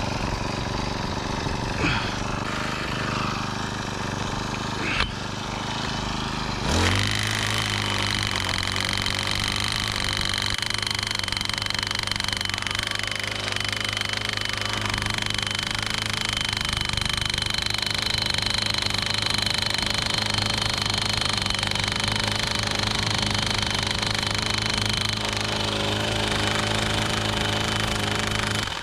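Gas-powered post driver's small engine running at low speed, then revving up about seven seconds in and running at a steady high speed, stopping abruptly at the end.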